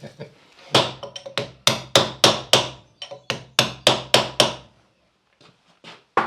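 Hammer blows on steel, knocking over the tabs of the lock washer on a Land Rover rear hub to lock the hub nuts: a quick run of ringing metallic strikes, three or four a second for about four seconds, then a few light taps.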